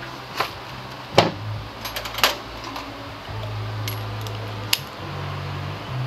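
Metal hand tools clinking as they are picked up and handled at a workbench: a few sharp clinks, the loudest about a second in, a quick cluster around two seconds in and one more near the end, over a low steady background hum.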